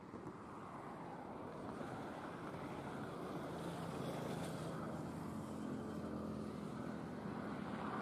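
A distant engine hum over a steady rushing noise, growing louder over the first few seconds and then holding.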